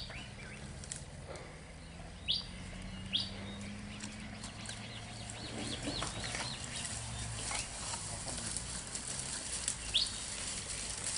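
A bird calling several times in short, rising chirps, over a low steady hum and faint scattered clicks.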